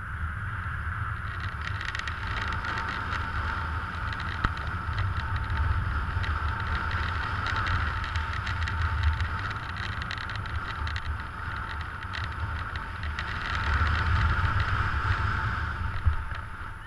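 Wind rushing and buffeting over the camera microphone as a paraglider glides in to land, swelling and easing with the airspeed. A short bump about sixteen seconds in, then the rush dies away as the pilot touches down.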